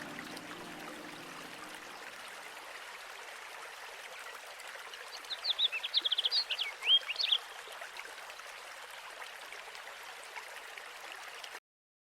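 Steady rush of flowing water, with a small bird singing a quick run of high, twittering notes about five seconds in. The sound cuts off suddenly near the end.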